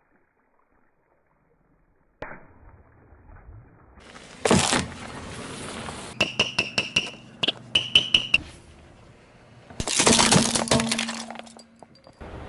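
A car tyre rolling over and crushing small brittle objects such as plastic toys on asphalt: after about two seconds of near silence, a loud crunch about four and a half seconds in, a quick run of sharp cracks and snaps, then another long crunching break near ten seconds.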